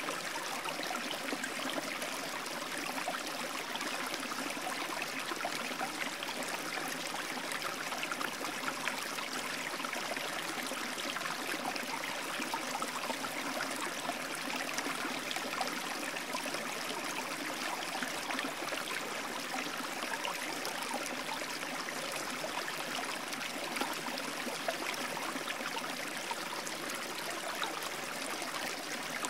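Steady running water of a stream, an even rushing with no change in level.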